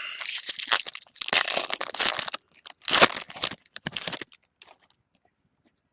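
Foil trading-card pack wrapper crinkling as it is torn open and crumpled by hand, stopping about four seconds in.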